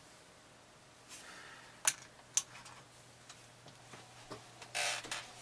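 Metal sculpting tools handled on a cluttered worktable: two sharp clicks about half a second apart, then a short rustle near the end, over a faint steady low hum.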